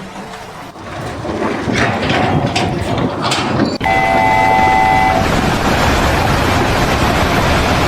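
Loud rising noise with a few knocks, then after a sudden break a horn sounds for about a second, followed by steady heavy noise.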